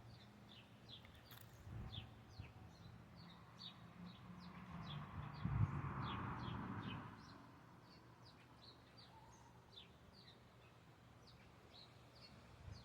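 A small bird chirping faintly and steadily, short high falling chirps about two a second. A soft rushing noise swells and fades in the middle.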